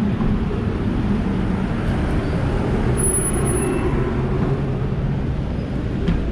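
City street traffic in heavy rain: a motor vehicle's engine running close by with a steady low hum, over the hiss of rain and wet road. A brief high-pitched squeal comes about three seconds in.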